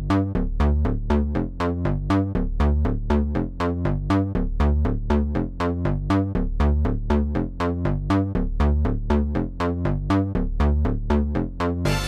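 Electronic dance music with a steady, fast beat, about four strokes a second, over a pulsing synth bass.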